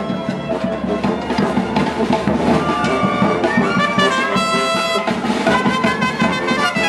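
A street brass band playing: trumpets and trombones carrying the tune over the steady beat of a hand-carried bass drum.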